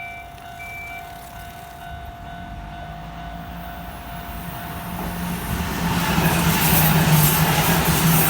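Level crossing alarm ringing with repeating tones as a Kintetsu Osaka Line electric train approaches, its noise rising steadily and growing loud from about halfway as it runs through the crossing.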